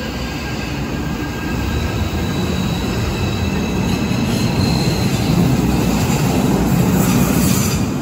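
Cologne light rail (KVB Stadtbahn) train running in an underground station, its rumble building steadily louder as a train approaches from the tunnel, with faint high wheel squeal.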